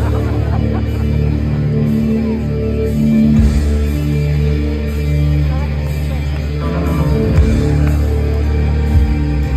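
Recorded rock music with singing playing over a concert hall's sound system, with a steady, prominent bass line.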